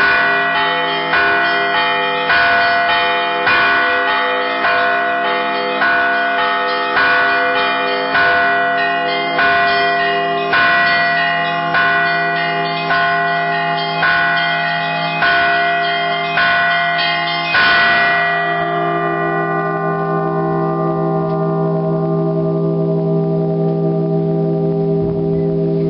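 Church bells rung by hand, several bells sounding together in a steady rhythm of about one stroke a second. The strokes stop about three quarters of the way through, and the bells' low hum rings on, throbbing slowly.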